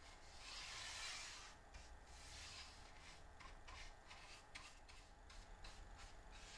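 Faint rubbing of a flat brush spreading finish along the edge of a wooden board: one longer swish about half a second in, then a run of quick, short strokes.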